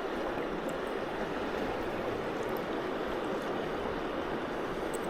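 Creek water flowing steadily over rocks, an even rushing noise.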